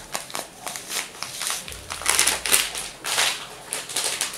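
A food packet crinkling and crackling in the hands as it is handled, in an irregular run of rustles.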